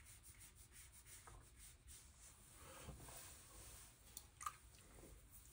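Faint soft brushing of a watercolour brush laying short strokes on paper, with a single brief click about four and a half seconds in.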